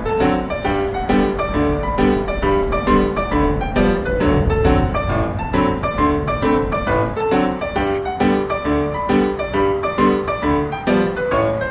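Background music: a bright piano tune with quick, evenly spaced notes and a steady beat.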